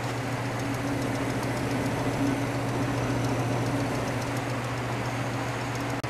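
1933 Frigidaire condensing unit running, its repulsion-induction motor driving the freshly charged compressor with a steady hum.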